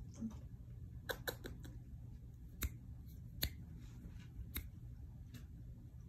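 Light, sharp clicks and ticks from a Belgian Malinois puppy playing with a towel on carpet, a quick run of them about a second in and a few single ones after, over a low steady hum.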